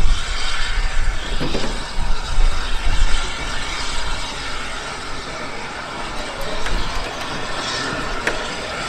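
A train running on rails: a steady rumble and rattle. It is loudest in the first three seconds, then eases off, with a couple of sharp clicks later on.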